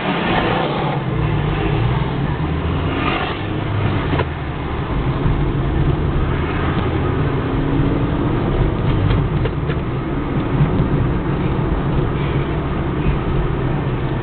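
Steady engine and road noise inside a moving car's cabin. A few light knocks from the camera being handled cut through it, one about four seconds in and a few more around nine to ten seconds.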